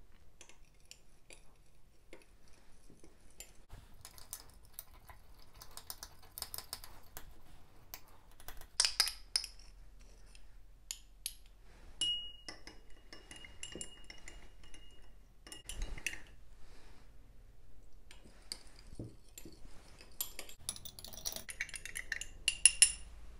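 Small metal spatula stirring and scraping in small glass beakers and a glass dish, with many light clinks against the glass as a solubilizer is mixed into water. About twelve seconds in, one tap leaves a clear ringing tone for about three seconds. There are louder clusters of clinks about nine seconds in and near the end.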